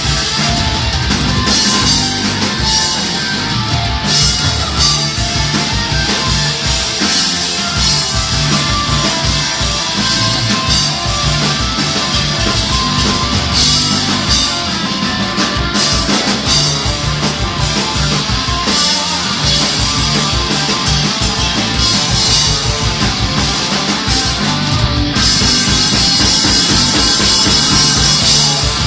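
Rock band playing live through an instrumental stretch with no singing: guitar over a steady drum-kit beat, the cymbals growing brighter near the end.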